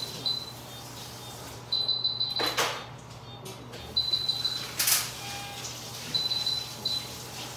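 Operating-room medical equipment beeping: a high electronic tone in short clusters of quick beeps every second or two, over a steady low hum. Two short sharp noises come about two and a half and five seconds in.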